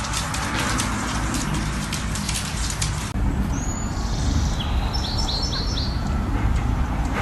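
Dense crackling clicks over a low rumble stop abruptly about three seconds in. A bird then chirps a quick run of about four short high notes over a steady low rumble.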